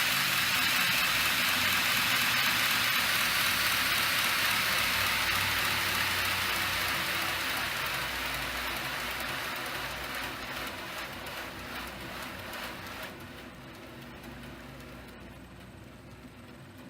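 Shop-built belt grinder with a 2 hp Leeson three-phase motor on a VFD, its running belt giving a steady hiss over a faint motor hum. The sound fades gradually over about a dozen seconds as the belt slows down.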